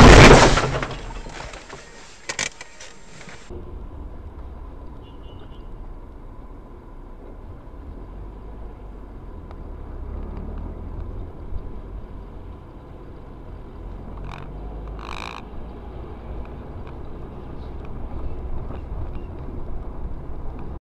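Car crash heard on a dashcam: a loud impact at the start that dies away over about a second, then a sharp knock. After that comes steady low road and engine rumble from inside a moving car, broken by two short higher-pitched sounds about two-thirds of the way through.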